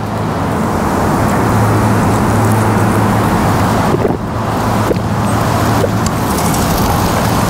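Steady road traffic noise with a low engine hum running throughout.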